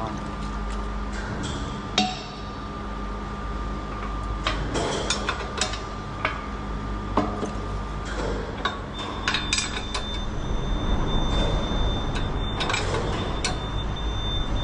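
Scattered metal clinks and knocks of hand wrenches working the bolts of a steel pipe plug's clamp, with a sharper knock about two seconds in and some brief ringing, over a steady low hum.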